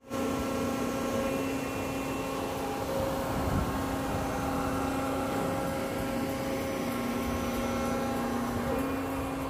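Steady mechanical hum with a held low tone, starting abruptly; the tone sags slightly in pitch near the end, then recovers.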